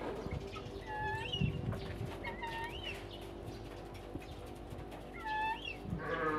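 A bird gives short chirping calls three times over a steady low hum, and a sheep starts to bleat near the end.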